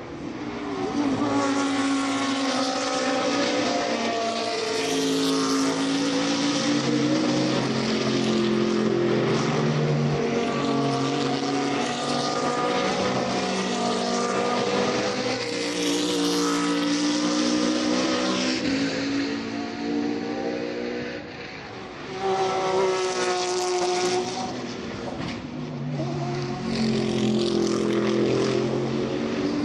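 GT3 race cars going past one after another at speed, their engines revving up and shifting through the gears. The engine pitch climbs and steps back down repeatedly, and the sound swells as each car passes.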